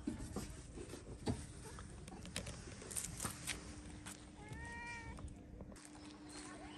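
A cat meows once, about four and a half seconds in: a single short call that rises slightly and falls. There are scattered small clicks and knocks around it.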